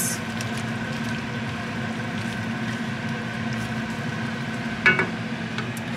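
A pot of chunky vegetable and chickpea chili simmering on a gas stove while a wooden spatula stirs through it, over a steady hiss and a faint low hum. A brief higher-pitched sound comes about five seconds in.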